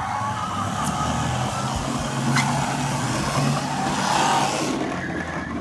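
Battery-powered Toy State Road Rippers Ford F-150 Raptor toy truck driving across a wooden floor, its motor and plastic wheels running with a steady hum.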